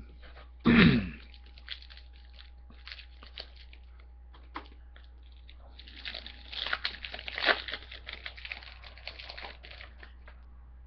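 A trading-card pack wrapper being crinkled and torn open, with light clicks of cards being handled. The crinkling is densest from about six to ten seconds in.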